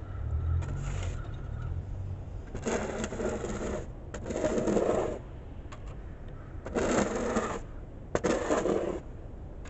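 Red plastic snow shovel pushed along a concrete sidewalk, its blade scraping through snow four times, each push lasting about a second.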